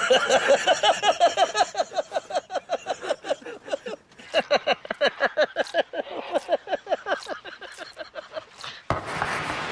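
A person laughing in a long run of quick ha-ha bursts, about five a second, pausing briefly partway through. Near the end a sudden rushing whoosh comes in.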